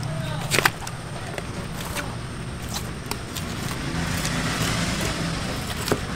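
Steady low rumble of road traffic, with a hiss that swells about four seconds in and a few sharp clicks and knocks, the loudest about half a second in and just before the end.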